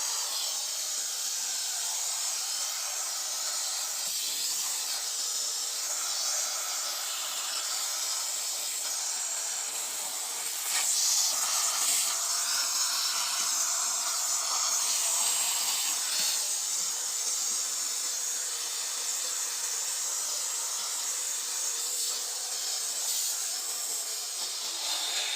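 Steady static hiss from the vintage Sanyo M9802AK radio cassette player's speaker, a little louder about halfway through.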